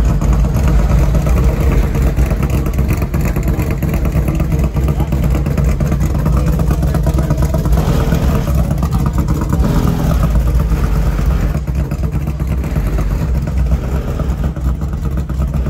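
A vehicle engine running steadily close by, with a constant low rumble.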